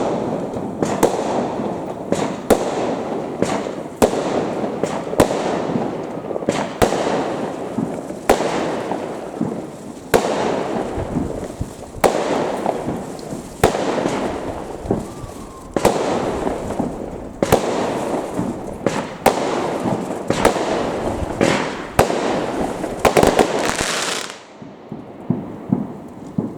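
Fireworks display: aerial shells bursting in a rapid run of sharp bangs, one every second or so, with crackling between them. The barrage stops suddenly near the end.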